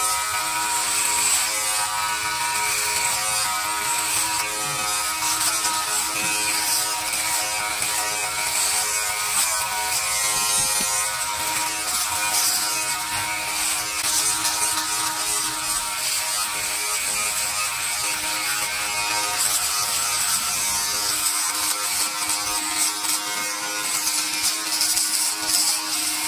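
Philips BodyGroom 7000 body groomer running with its foil shaver head worked over chest hair: a steady electric motor hum with a buzzy hiss of cutting on top.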